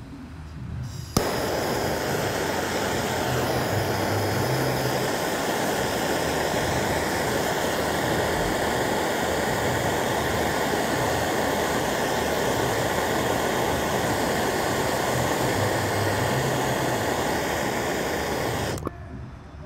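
Handheld gas soldering torch burning at full heat with a loud, steady rushing hiss, heating a half-inch copper pipe joint for soldering. It lights with a sharp pop about a second in and shuts off abruptly near the end.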